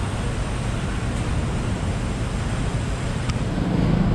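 Steady rumble of city street traffic with wind buffeting the microphone; a vehicle engine grows louder in the last half second.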